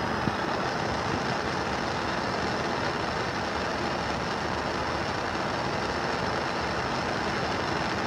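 Propane burner running with a steady, even rush of flame noise.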